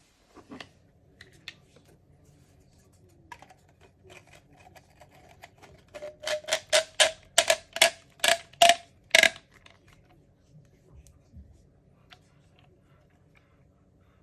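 A quick run of about a dozen sharp, loud clicks, roughly four a second, with a few lighter clicks before it.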